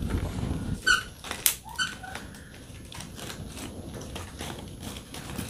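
Dry twigs and sticks clicking, snapping and crackling as they are pushed into the firebox of a wood-fired clay chulha, the sharpest snap about a second and a half in. Two short mews from a cat come about a second in and just under two seconds in.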